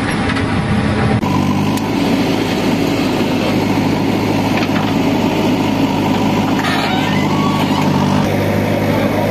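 JCB 3DX backhoe loader's diesel engine running steadily while the backhoe arm digs. The engine note shifts about a second in and again near the end.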